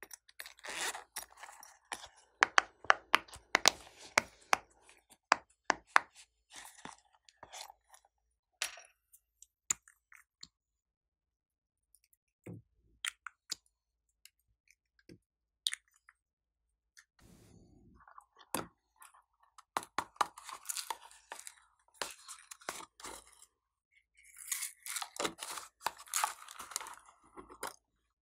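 Silicone pop-it fidget toy being pressed: a quick run of sharp pops and clicks over the first several seconds, thinning to a few single clicks. In the last third, sequins rattle and crackle as they are poured from small plastic jars onto the slime.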